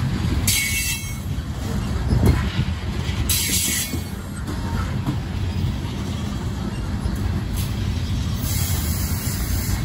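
Freight train's coal cars rolling past, a steady low rumble of steel wheels on rail. Three brief high-pitched squeals from the wheels come about half a second in, around three and a half seconds in, and near the end.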